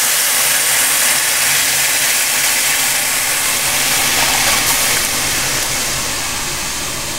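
Steady sizzling hiss as boiled milk is poured into a hot pan of freshly roasted vermicelli, nuts and dried fruit; the hiss slowly dies down toward the end as the pouring stops.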